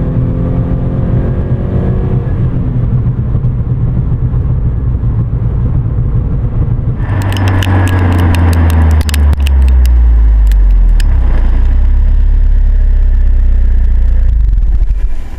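Subaru BRZ/Scion FR-S 2.0-litre flat-four running through an Invidia Q300 cat-back exhaust with titanium tips, a steady low drone. About seven seconds in, a rush of noise with a run of sharp clicks comes in for a few seconds and the note drops lower, settling into a deeper steady drone.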